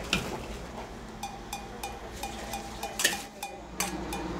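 A steel ladle clinking repeatedly against metal cookware while food is ladled out, about three clinks a second, each with a short metallic ring. A louder clink comes about three seconds in.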